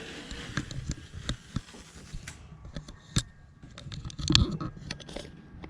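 Abrasive scuff pad rubbing over a fridge's factory finish for about two seconds, then scattered clicks and knocks of handling, with a louder thump about four seconds in.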